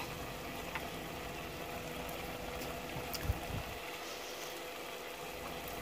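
Faint, steady background hum, with a small click about a second in and a soft low thump a little past the middle.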